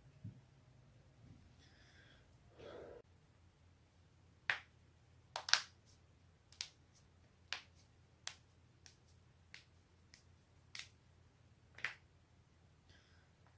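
Human joints cracking: a run of about a dozen sharp, dry pops at irregular intervals, starting a few seconds in, the loudest a close double pop near the middle.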